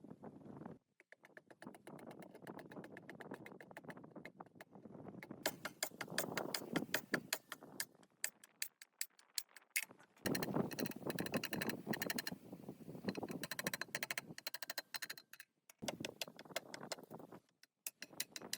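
Rapid metallic clicking and clinking of hand tools working on metal pump parts, in several short bursts cut apart by brief silences.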